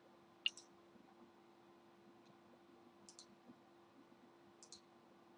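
Computer mouse buttons clicking quietly: a single click about half a second in, then two quick double clicks, around three seconds and near the end, over a faint steady hum.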